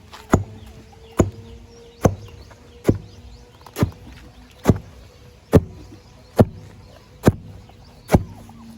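A blade chopping in a steady rhythm, about one sharp strike a second, as animal feed is cut up by hand.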